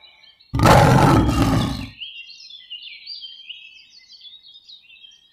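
A big cat's roar, one loud rough burst about a second and a half long, followed by many short high bird chirps.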